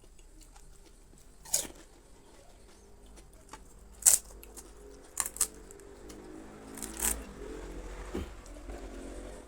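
Close-miked eating of pani puri: about five sharp crunches of the crisp puri shells being bitten, with quieter chewing in between.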